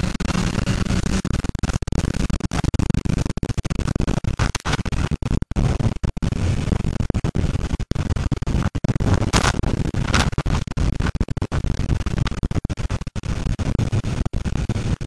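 Wind buffeting the microphone of a helmet-mounted camera on a moving motorcycle: a steady, rough rushing noise, heaviest in the low end, broken by many brief dropouts. Two short louder hisses come about nine and ten seconds in.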